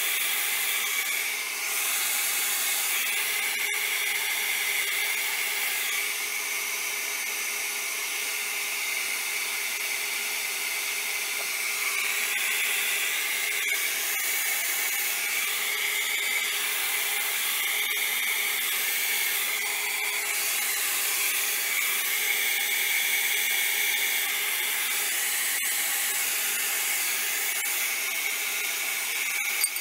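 Handheld blow dryer running steadily, blowing over wet alcohol ink to dry it in place.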